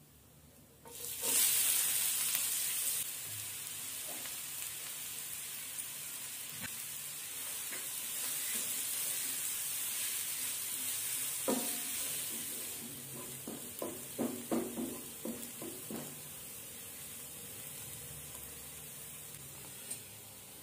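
Chopped onions tipped into hot oil in a nonstick pan, hitting it with a sudden loud burst of sizzling about a second in, then frying with a steady sizzle. Midway, a run of scraping, clacking strokes as a wooden spatula stirs them.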